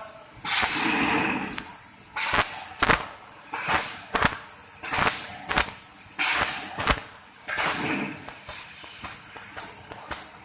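EMC 1530 Fi fiber laser cutter cutting stainless steel with compressed air as the assist gas: irregular rushes of air hiss that start and stop every second or so, broken by short sharp cracks.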